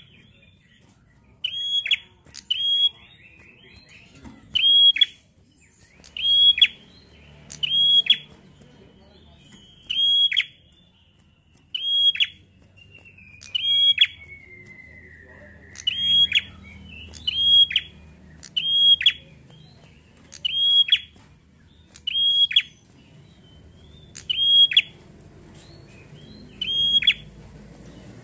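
Caged prenjak, a small rufous-headed tailorbird-type songbird, repeating one sharp, high call over and over, about one every second or so, each note dropping steeply in pitch. A fainter, drawn-out descending warble runs under the calls near the middle.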